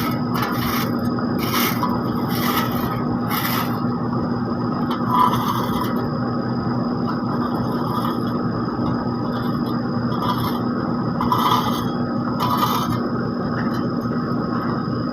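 Heavy asphalt-paving machinery running steadily at a constant engine hum, with short scraping sounds coming again and again every second or so, as of tools or metal dragging over the asphalt.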